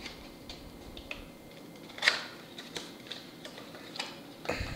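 Small cardboard box being handled and opened: scattered light taps, rustles and scrapes of cardboard and paper, with a brief louder scrape about two seconds in and a soft knock near the end.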